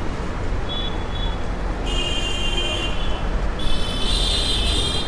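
Street traffic noise: a steady low engine rumble, with high-pitched vehicle horns honking in long blasts, one about two seconds in and another from about three and a half seconds on.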